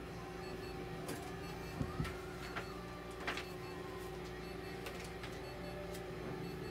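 Steady electrical hum of veterinary therapy equipment, with a few soft clicks and knocks, the sharpest about two seconds in.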